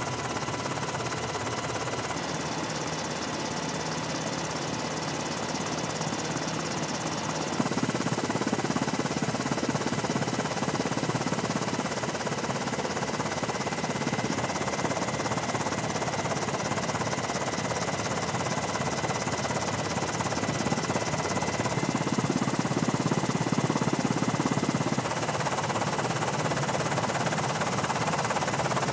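Steady helicopter engine and rotor noise with a high, even whine, shifting in tone at cuts between shots about two, eight and twenty-five seconds in.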